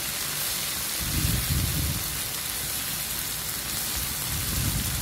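Chopped onion, garlic, tomato and bell pepper sizzling steadily in olive oil in a frying pan, with a few dull bumps around a second in and again near the end.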